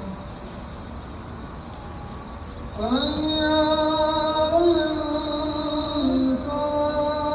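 A man's voice in slow, melodic Islamic recitation. After a pause with only a low background hum, it rises into a long held note about three seconds in and sustains it with small shifts in pitch.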